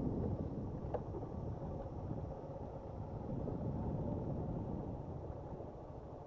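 Motorcycle engine, the single cylinder of a Suzuki Gixxer SF 155, running steadily on a rough stony track, with a single sharp knock about a second in.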